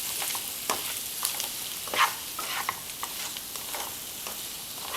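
Boiled potato pieces frying in oil in a pan while being stirred, a steady sizzle with irregular scrapes of the spatula against the pan, the loudest about two seconds in.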